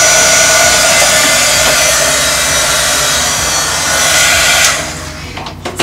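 Electric heat gun running, a steady rush of blown air with a fan whine, used to remelt and reseal layers of encaustic wax on a painting. It cuts off abruptly a little under five seconds in, followed by a few light clicks.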